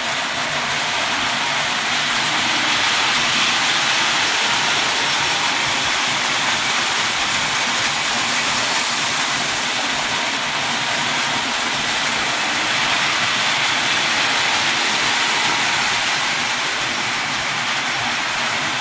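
Lionel post-war O-gauge tinplate trains running on three-rail track: a steady whir of the locomotive motors and the rattle of wheels on the rails.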